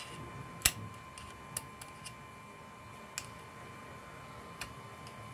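Small, sharp clicks of metal tweezers and tiny parts against an opened iPhone 7's frame: about six irregular ticks, the loudest about two-thirds of a second in. A faint steady high hum sits underneath.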